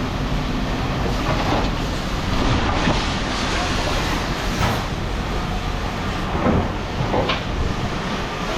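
Steady mechanical rumble of running machinery, with a few short clanks and muffled voices.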